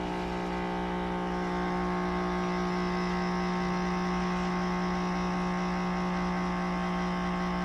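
Coffee machine running while brewing: a steady, even mechanical hum.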